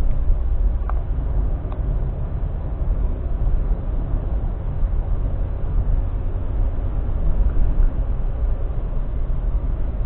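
Steady low rumble of a moving car's road and engine noise, picked up inside the cabin by a dashcam, with a couple of faint clicks about one and two seconds in.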